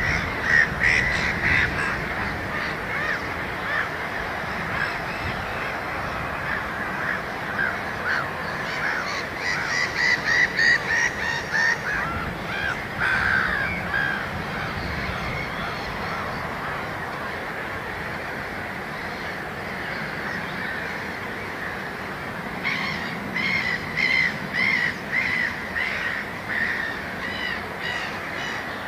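Wetland birds calling, with runs of short repeated calls in three bouts: at the start, in the middle and near the end, over a steady low background.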